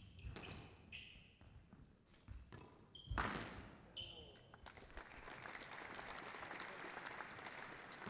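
Squash rally: the ball cracks off racket and walls, with short high squeaks of court shoes on the wooden floor. From about five seconds in, as the rally ends, the crowd applauds steadily.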